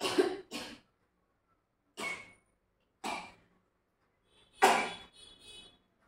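A woman sneezing repeatedly, brought on by nasal snuff: five sharp sneezes, two in quick succession at the start, then about one a second, the fourth followed by short sniffling breaths.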